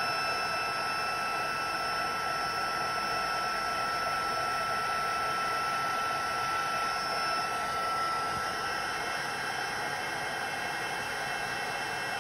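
Embossing heat tool blowing steadily while it melts embossing powder: an even rush of hot air with a fan whine over it. The pitch of the whine shifts about eight seconds in.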